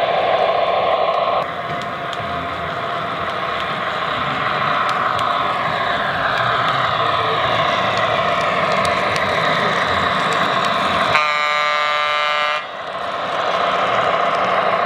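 MTH O-scale NW-2 diesel switcher model running on its track, its Proto-Sound 3.0 system playing diesel engine sound with a slowly shifting pitch. About eleven seconds in, the locomotive's horn sounds once for about a second and a half.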